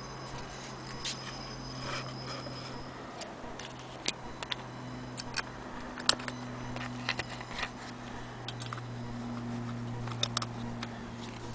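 Scattered light clicks and taps as fingers handle a cast-iron Willcox & Gibbs hand-crank wheel and its fittings, the sharpest about six seconds in, over a steady low hum.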